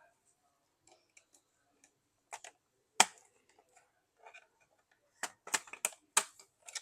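Sharp plastic clicks and taps from a laptop's case parts being handled and pried apart during disassembly: scattered single clicks, the loudest about three seconds in, then a quick run of several near the end.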